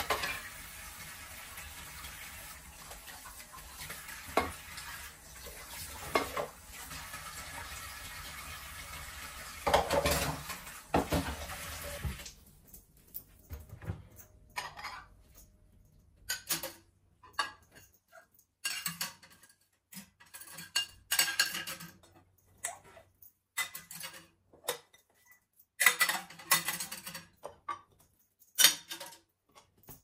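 Dishes being washed at a kitchen sink: the tap runs with clinks and knocks of a steel pot, plate and wooden cutting board, then the water stops about twelve seconds in and short clatters and rubbing follow as the dishes are handled and wiped with a tea towel.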